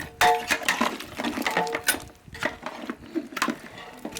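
A spoon or ladle stirring a curry of beef trotters in a pot, clinking and scraping against the pot again and again, some knocks ringing briefly.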